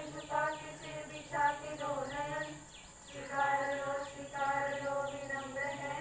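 A small group singing a slow prayer song in long held notes, over a loudspeaker system. A fast, even run of high chirps goes on behind it.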